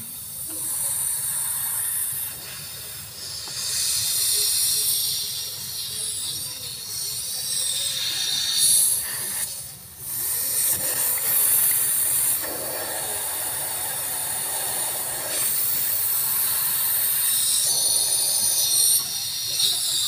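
Refrigerant (freon) gas hissing at a fitting on an LG refrigerator compressor's line while the system is charged to find a leak. The hiss swells and eases, and stops briefly about halfway through.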